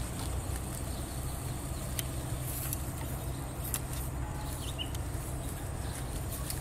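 A steady low rumble, with a few faint clicks and rustles of footsteps through low leafy plants.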